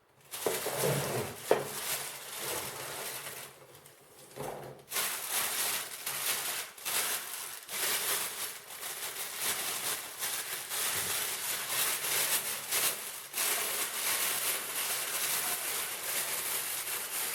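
Packaging being handled during an unboxing: continual crinkling and rustling with small clicks and knocks, easing off briefly about four seconds in.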